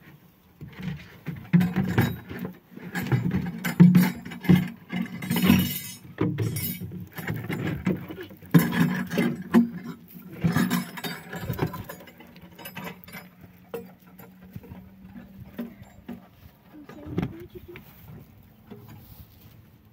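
Plastic jerrycans and jugs knocking, clattering and scraping as they are handled and set down on rocky ground, in an irregular run of hollow knocks that thins out after about twelve seconds, with one more sharp knock a few seconds later.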